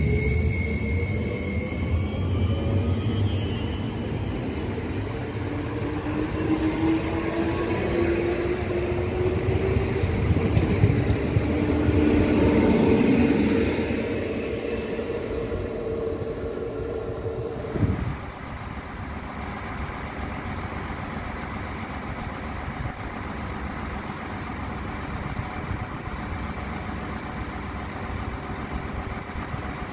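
Regio 2N double-deck electric train pulling away, its traction motors whining with a rising pitch as it speeds up, then fading. About two-thirds of the way in, a diesel railcar takes over, running steadily as it approaches, with a steady high whine over a low rumble.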